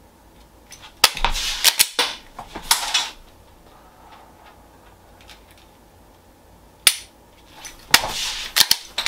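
Semi-automatic pistol loaded with dummy rounds, handled in a dry-fire tap-rack drill: a sharp click about a second in, then a run of clicks and clatter as the magazine is tapped and the slide racked. Another sharp click comes near seven seconds in, followed by more handling clatter near the end.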